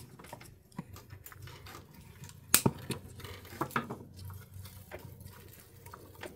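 Scattered sharp clicks and light knocks of cherry tomato clusters being cut from the plant and handled, the sharpest click about two and a half seconds in.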